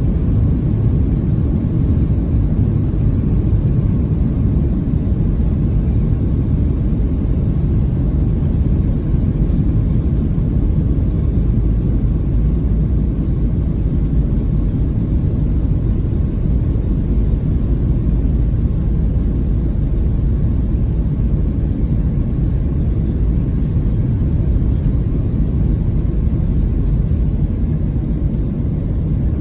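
Steady low rumble of a Boeing 737-700 airliner's engines heard inside the passenger cabin.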